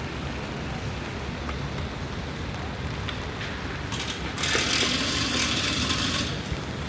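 Rainy city-street ambience: a steady low rumble of traffic on wet roads. About four seconds in, a loud hiss starts abruptly, lasts about two seconds and stops suddenly.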